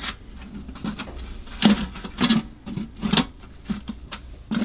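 Metal resonator coverplate of a vintage Dobro clunking and scraping against the guitar's metal body as it is worked loose by hand, with irregular knocks, the loudest under two seconds in. The plate is stuck in place.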